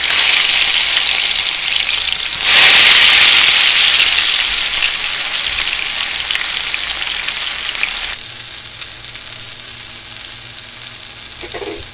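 Hot oil sizzling loudly around breaded snapper fillets shallow-frying in a pan. The sizzle surges as the fillets are turned over, loudest about two and a half seconds in, then slowly settles.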